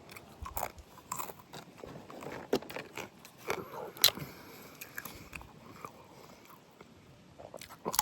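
Close-miked chewing and biting into rotisserie chicken: irregular crunches and clicks, the sharpest about four seconds in.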